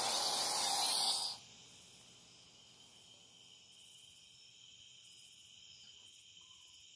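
Torch flame hissing, then cut off abruptly about a second in; afterwards only a faint steady high-pitched whine.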